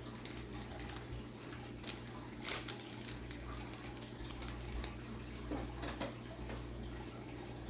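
Trading cards and their pack wrapper being handled, with scattered soft rustles and short clicks over a steady low hum.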